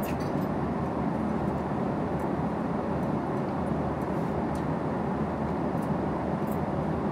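Steady cabin noise of a Boeing 777-300ER airliner in flight, a deep even rush of engines and airflow, with a few faint clicks of cutlery on a plate.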